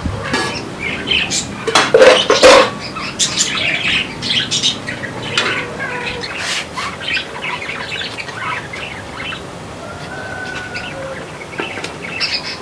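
Birds chirping and squawking in a busy, irregular chorus, loudest about two seconds in, with a brief whistled note near the end.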